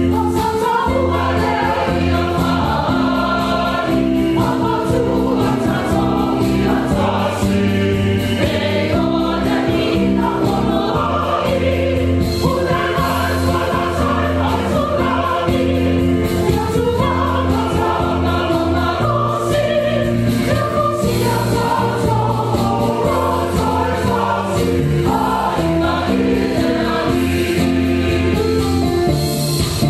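Church choir singing a hymn in Samoan, many voices together in sustained phrases.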